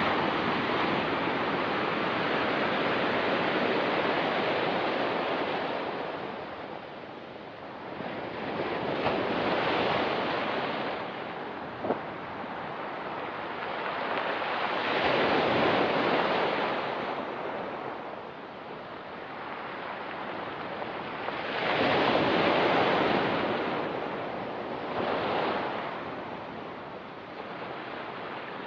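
Ocean surf breaking and washing up a rocky, pebbly shore in slow swells that rise and fall every several seconds. There is one brief sharp click about twelve seconds in.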